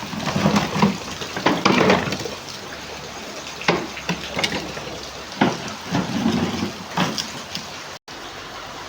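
Water splashing in the rain, with a steady wash of falling water and a series of loud, irregular splashes, as of children playing in puddles. The sound drops out for an instant near the end.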